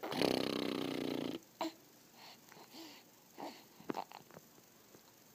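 A three-month-old baby's raspy, growly grunt lasting about a second and a half, followed by faint mouth clicks and small soft vocal sounds.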